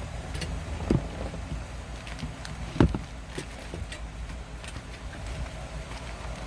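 Small clicks and knocks of parts and tools being handled, with two louder knocks about a second in and just before three seconds in, over a steady low hum.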